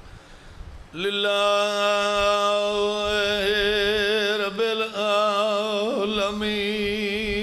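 A man's voice chanting one long held note of an Arabic invocation in a slow melodic style. It begins about a second in, wavers with vibrato and steps slightly in pitch twice.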